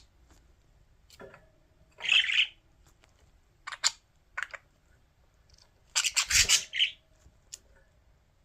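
Budgerigars giving short, harsh squawks in scattered bursts as they squabble over lettuce. The loudest bursts come about two seconds in and in a cluster around six to seven seconds.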